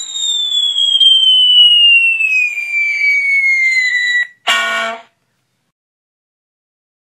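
Cartoon falling-whistle sound effect: a whistle gliding steadily down in pitch for about four seconds over a faint hiss, cutting off suddenly. A short, separate pitched sound effect of about half a second follows right after.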